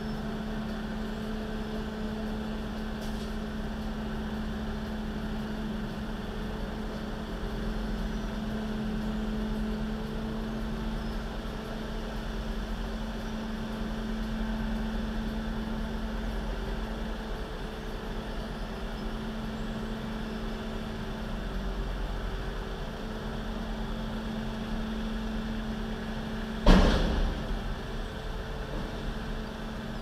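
Truck engine idling with a steady hum and low rumble, then a single loud bang with a short ringing tail about 27 seconds in as the dump truck's raised body lets its load go.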